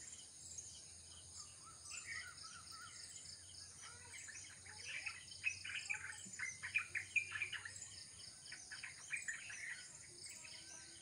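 Small birds chirping and calling, many short notes that come thickest in the second half, over a steady high drone.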